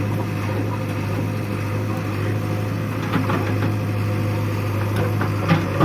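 JCB backhoe loader's diesel engine running steadily with a low, even hum, with a few short knocks about three seconds in and near the end.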